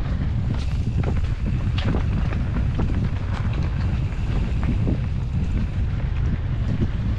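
A Rocky Mountain Slayer Carbon 50 full-suspension mountain bike rolling fast down a trail, with wind rumbling on the action camera's microphone. Frequent short clicks and rattles come from the bike as it rides over rough ground.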